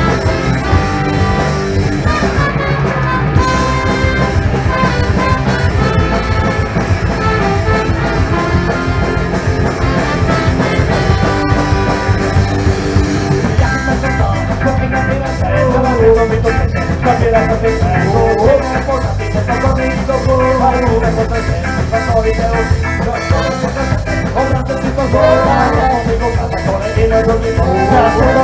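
Live ska-punk band playing: drum kit and electric bass under a brass horn line, with a man's singing voice coming in about halfway through.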